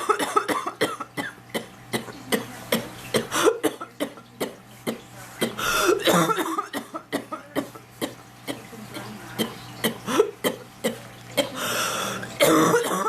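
A sick woman's prolonged coughing fit: many short, hard coughs in quick succession, with longer bouts about six seconds in and near the end. The cough comes from an illness settled in her throat and chest.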